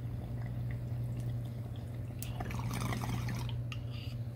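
Water bubbling and gurgling in a glass bong as cannabis smoke is drawn through it, loudest between about two and three and a half seconds in, over a steady low hum.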